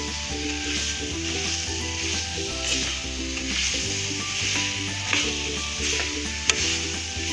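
Raw mango pieces frying and sizzling in oil and spice paste in an aluminium kadhai while a metal spatula stirs them. A single sharp click stands out about six and a half seconds in.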